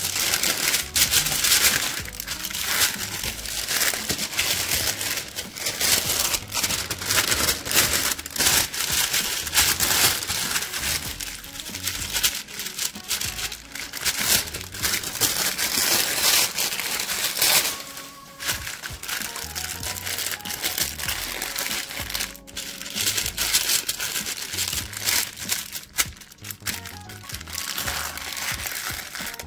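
Parchment paper crinkling and rustling as hands fold and crease it around fish fillets, in quick crackly bursts, over background music.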